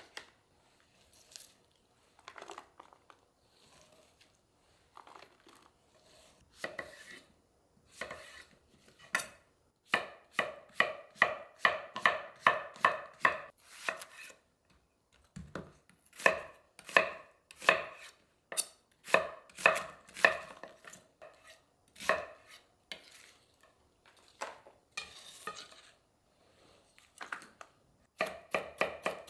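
A kitchen knife chopping food on a cutting board, in quick runs of about four or five strokes a second, with pauses and scattered single cuts between.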